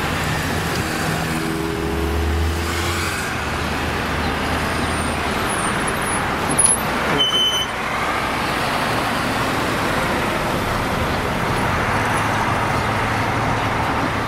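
City road traffic heard from a moving car with an open window: a steady rush of tyre and engine noise. The deeper engine note of a nearby vehicle stands out in the first few seconds, and a short high squeak comes about seven seconds in.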